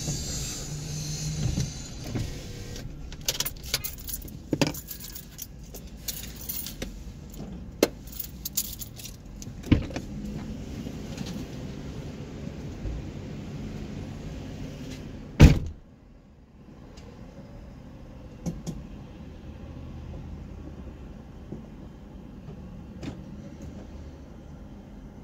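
Car driving, with a steady road rumble and scattered clicks and rattles. One loud thump comes about fifteen seconds in, and after it the noise drops and stays lower.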